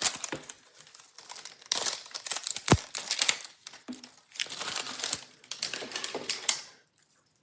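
Plastic packaging crinkling as a Mini Brands blind-box capsule and its wrappers are worked open by hand, in three bursts of handling with a sharp click near the middle.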